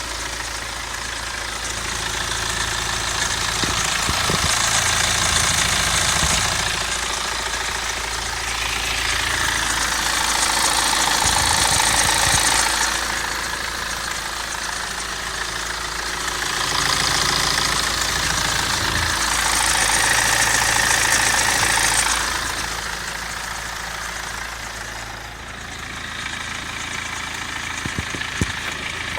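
BMW N47 four-cylinder diesel engine running with a knocking rattle that the owner suspects is timing chain noise. It gets louder in three stretches of a few seconds each.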